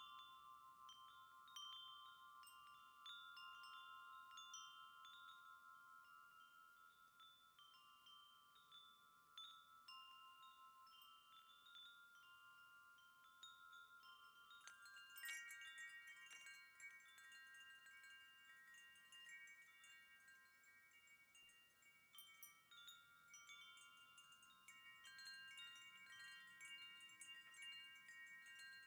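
A wind chime ringing quietly, struck again and again so that several notes sustain and overlap. About halfway through, a flurry of strikes brings in higher notes and a bright tinkling that carries on to the end.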